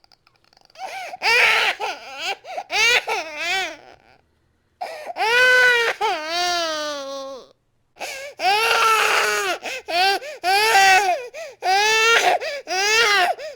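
Infant crying loudly in a run of wailing cries, each rising and falling in pitch, broken by short pauses about four and eight seconds in.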